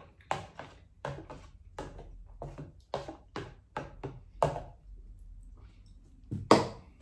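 Metal spoon knocking and scraping in a plastic container of soup as it is stirred and scooped: a quick run of short knocks for the first few seconds, then one louder knock near the end.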